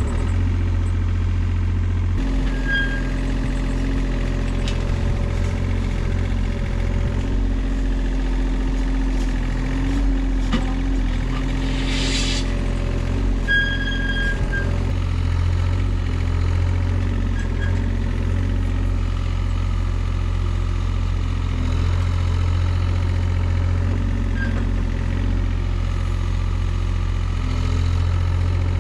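An engine, started moments before, running steadily, its note shifting a couple of seconds in and again later. A few short high squeaks and a brief hiss about twelve seconds in.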